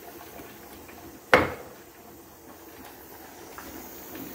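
One sharp clank of kitchenware against a cooking pot about a second in, with a short ring after it.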